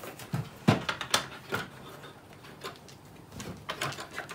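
Light clicks and knocks of small plastic toy pieces being handled and fitted together. Several come in the first second and a half, and a few more near the end.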